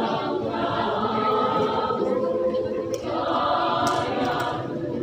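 A women's choir singing in parts, holding long notes in chords.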